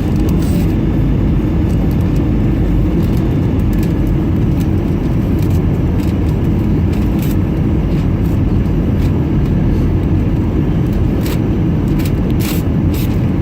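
Steady rush of airflow and engine noise heard inside the cabin of an Airbus A320 airliner on its landing approach, with a few brief light rattles or clicks near the end.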